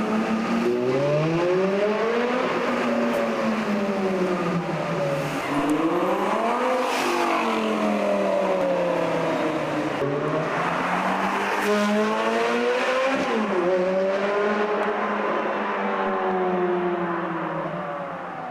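Supercar engine being revved several times: its pitch climbs over a second or two and sinks back slowly, over and over, settling into a steadier note near the end.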